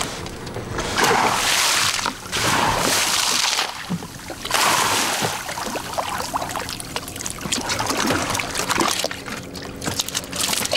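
Water splashing and streaming in three long surges as Humboldt squid are hauled from the sea over a boat's side, followed by quieter wet clicks and knocks of the catch on deck.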